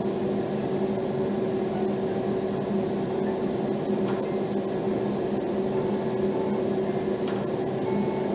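Steady low machine hum with two constant low tones over a rushing noise, like a fan or appliance running in a small room. Faint ringtone notes come in near the end.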